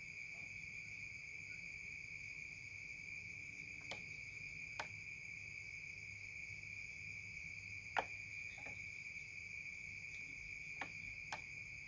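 Steady high-pitched insect trill in the background, with a few small clicks and taps from wires and a bulb socket being handled. The loudest click comes about eight seconds in.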